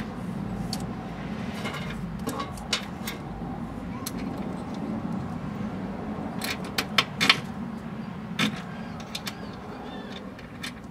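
A hand wrench clicks and clinks against the nut and bolt of a rear sway bar mount as the bolt is worked tight. Scattered sharp metal clicks, with a quick run of louder ones about two-thirds of the way through, over a steady low rumble.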